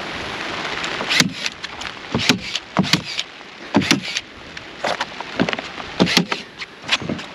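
A series of irregular knocks and thuds, about eight over several seconds, after a steady hiss that dies away about a second in.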